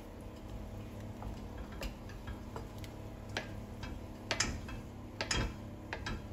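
Wooden spoon stirring and scraping a thick, simmering chicken pie filling in an enamelled pan, with scattered irregular clicks and knocks, the loudest two about four and a half and five seconds in. A low steady hum runs underneath.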